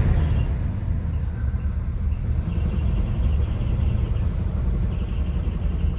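1966 Ford F100 pickup's engine idling steadily just after a cold start.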